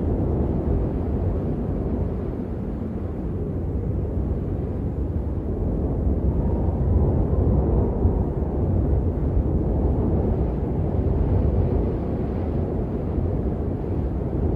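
Strong wind buffeting the microphone: a steady, loud low rumble with slow swells in strength.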